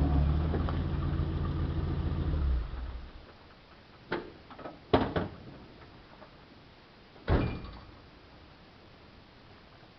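1955 Willys pickup's Super Hurricane straight-six running at a steady idle, then shut off about two and a half seconds in. A few clicks and knocks follow, and a single loud thump, a truck door slamming, comes a little past the middle.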